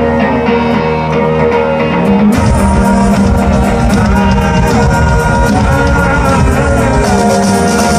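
Live country-rock band playing an instrumental passage, guitars over bass and drums. About two seconds in the full band comes in harder, with cymbals and drums filling out the top.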